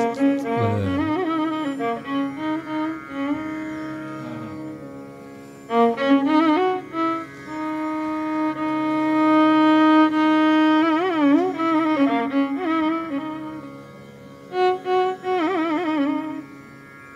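Instrumental background music: a melody of held notes with wavering, sliding ornaments.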